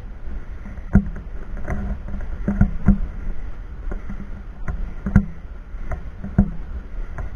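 Footsteps, a short thump about every half second to a second, over a steady low rumble.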